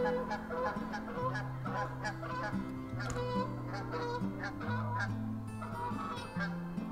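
A flock of Canada geese honking, many short calls overlapping, over background music with held low notes.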